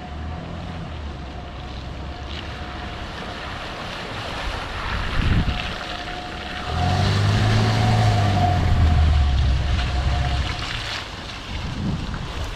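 Audi A6 2.8 quattro's V6 engine pulling the car through wet mud, its tyres churning the mud, with wind buffeting the microphone. The engine works harder from about seven seconds in for some three seconds, then drops back.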